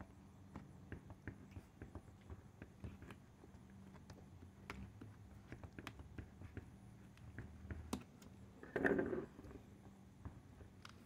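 Faint, scattered clicks and taps of a knife and pliers working a snapping turtle carcass open on a plastic cooler lid, with one short, louder noise about nine seconds in.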